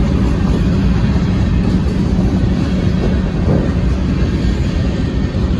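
Freight train of covered hopper cars rolling steadily past, its wheels rumbling on the rails.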